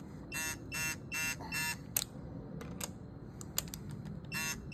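Ratchet wrench clicking in short, quick bursts about every half second, with one sharp single click about two seconds in, as the cylinder-head stud nuts of a VQ35DE are tightened in stages toward torque spec.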